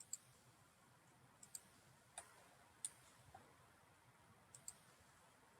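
Faint computer mouse clicks over near silence, about eight in all, some single and some in quick pairs.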